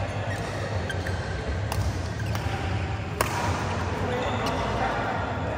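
Badminton rackets striking a shuttlecock in a doubles rally: several sharp hits a second or less apart, the loudest about three seconds in, echoing in a large hall over a steady low hum.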